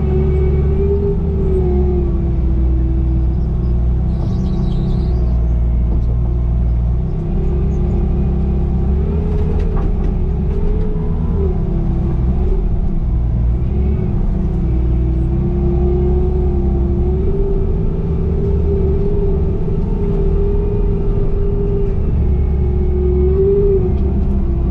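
Bobcat T595 compact track loader's diesel engine running steadily while working, a deep rumble with a humming tone that wavers up and down in pitch as the load changes.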